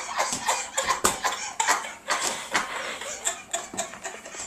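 Breathless, wheezy laughter and coughing, broken by scattered clicks and knocks, with one sharp knock about a second in.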